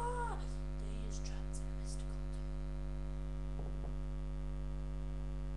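Steady electrical mains hum with a ladder of overtones, picked up by the recording. A short arched vocal sound ends right at the start, a few faint clicks follow in the first two seconds, and there is a brief low rattle a little past halfway.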